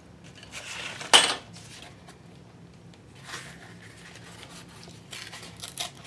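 Torn pieces of gel-printed brown paper bag rustling and crinkling as they are picked up and shuffled on a table, in a few short bursts, the sharpest about a second in, with a run of quick clicks near the end.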